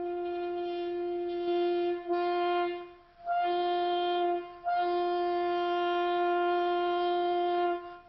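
Saxophone blown by a first-time learner in long held notes on one pitch: about four notes, the last the longest, each broken off by a short pause for breath.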